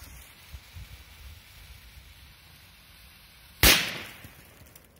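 A K-05 firecracker going off: a single sharp bang about three and a half seconds in, dying away over about half a second.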